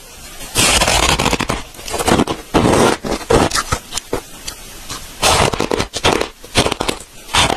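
Chunks of freezer frost being bitten and chewed close to the microphone: a run of crisp, crackly crunches in irregular bursts, roughly one a second.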